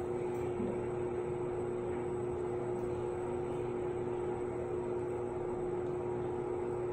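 Steady machine hum, like a running ventilation fan, with one constant tone over a low haze of noise.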